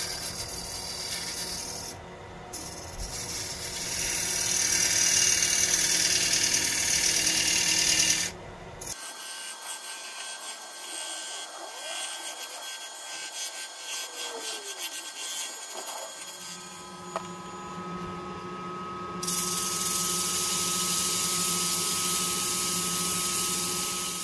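Wood lathe running with a hand-held steel scraper rubbing against the outside of a spinning cherry bowl, a loud scraping noise over the motor's steady hum. About nine seconds in, the hum drops away and the scraping goes quieter. The hum and scraping return loudly about two-thirds of the way through.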